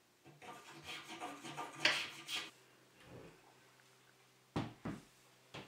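Wooden saw vise being worked by hand: wood parts rubbing and creaking with short squeaks for about two seconds. Then three sharp wooden knocks near the end as the vise is moved.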